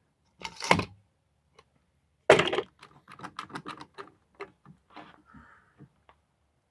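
Wooden pallet-wood rack being flipped over and set down on a workbench: a knock under a second in, a louder knock about two seconds later, then a run of lighter wooden clicks and knocks as it is handled.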